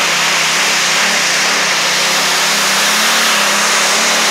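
Modified pulling tractor's engine running loud and steady, its pitch wavering slightly.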